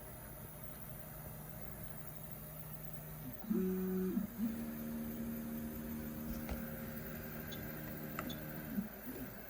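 LowRider v3 CNC stepper motors whining as the gantry moves the pen, in steady tones that jump to a new pitch with each change of move. There is a low steady hum for the first few seconds, then a louder, higher whine starting about three and a half seconds in, with further pitch changes near the end.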